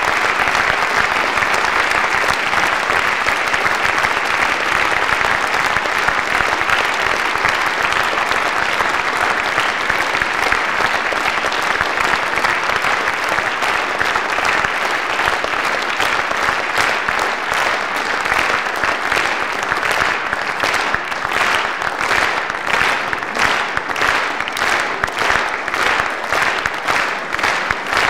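Concert-hall audience applauding steadily. About two-thirds of the way through, the clapping falls into a rhythmic, in-unison beat.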